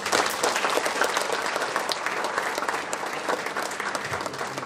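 Audience applauding, starting abruptly and holding steady, easing slightly near the end.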